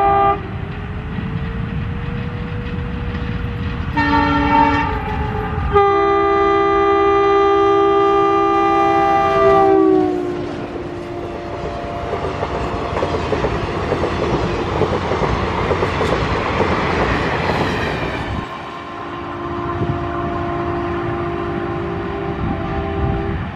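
ALCO WDM-3A diesel locomotive's multi-tone air horn sounding in long blasts as it comes up and passes at speed; the horn chord drops in pitch as the locomotive goes by. Then the coaches rush past with wheels clattering over the rail joints, and near the end a further, lower horn blast sounds from the departing locomotive.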